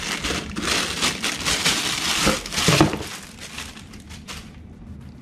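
Thin plastic bag crinkling and rustling as a pop filter is pulled out of it and unwrapped. The crackle thins out about three seconds in to a few faint rustles.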